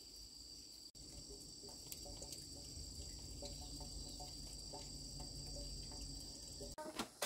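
A steady, high-pitched insect chorus, two unbroken tones held together, over a low rumble. It cuts off near the end, followed by a couple of clicks.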